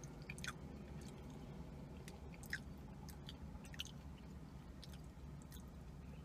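A person chewing a sticky sesame seed cookie: faint, scattered mouth clicks and ticks over a steady low hum.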